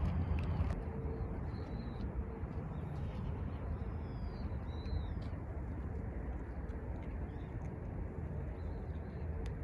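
Outdoor ambience: a steady low rumble with a few faint, short high bird calls in the first half.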